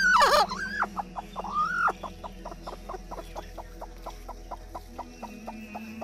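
Broody domestic hen on her nest giving a loud, harsh squawk right at the start and a couple of shorter rising-and-falling calls within the first two seconds. Beneath them runs a steady series of short soft notes, about three to four a second.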